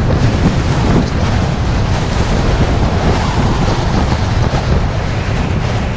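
Strong wind buffeting the microphone over the rush of water and spray along the hulls of a Lagoon 440 catamaran sailing fast in gale-force wind.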